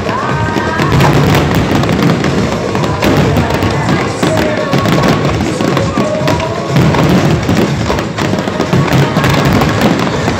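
Fireworks display bursting continuously: a dense, unbroken run of bangs and crackling from many shells going off at once, with music playing along.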